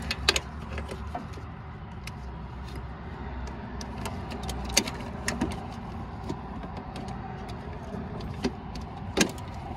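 Scattered clicks and taps of a pin-removal tool and hands working at a shifter cable retaining pin, twisting and pulling at it, over a steady low rumble. The sharpest clicks come just after the start, around five seconds in, and near the end.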